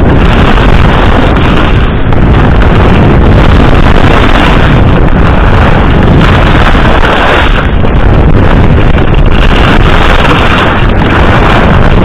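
Wind rushing and buffeting over the camera microphone of a skier going fast downhill; a loud, unbroken rumble.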